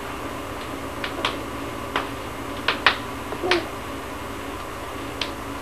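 A few short, light clicks and taps spread over several seconds, with a brief soft vocal sound from a toddler about three and a half seconds in, over a steady low hum.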